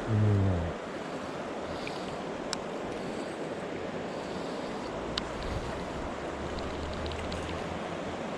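Mountain stream rushing steadily. A brief low vocal grunt right at the start, then two sharp clicks a few seconds apart.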